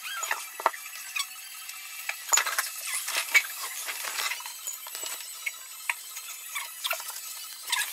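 Spoon scraping and clinking against a bowl of porridge in short, irregular clicks during feeding.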